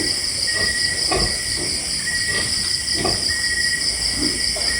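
Crickets and other insects chirring steadily in a high, continuous drone, with a few faint short sounds underneath.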